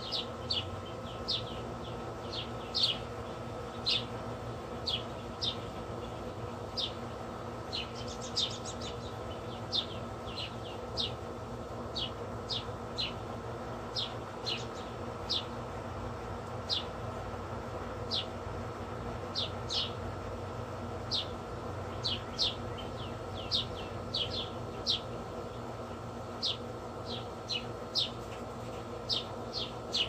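High, short chip calls of a small animal, repeated steadily a little more than once a second, each note a quick downward sweep. A steady hum runs underneath.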